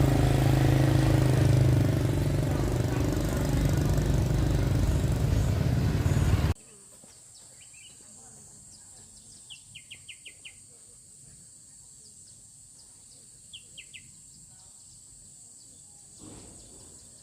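A motor engine running steadily with a low hum, cut off abruptly about six seconds in. Then quiet countryside ambience: a steady high insect drone, and a bird giving short runs of about five rapid chirps, three times.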